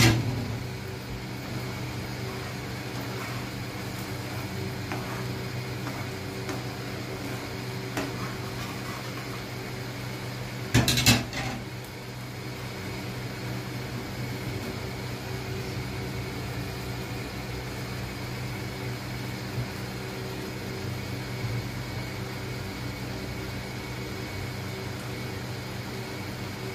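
Portable induction cooktop running, a steady electrical hum with its cooling fan. A short clatter about eleven seconds in.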